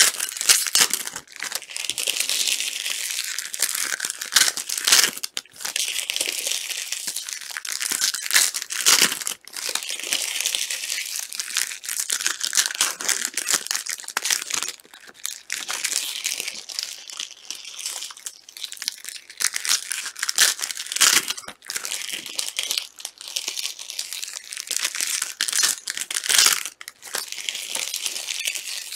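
Plastic trading-card wrappers crinkling and tearing as card packs are opened by hand: a steady run of crackling with louder flurries now and then.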